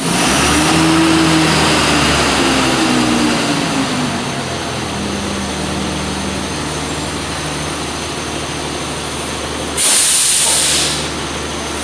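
Kobe 1-inch long-anvil pneumatic impact wrench running steadily on compressed air, with a hiss of exhaust air. About ten seconds in, a louder burst of air hiss lasts about a second before the steady running continues.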